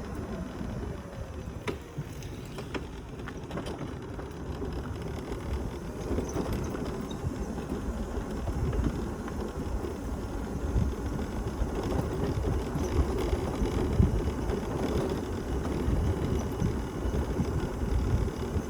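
Old mobility scooter being driven along, a steady low rumble of motor and wheels with its body rattling and a couple of sharp clicks near the start.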